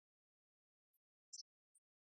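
Near silence, broken by a few faint, very short high-pitched chirps about a second in.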